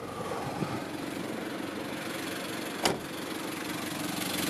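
Nissan TD27ETi 2.7-litre four-cylinder turbo diesel idling steadily. A single sharp knock about three seconds in.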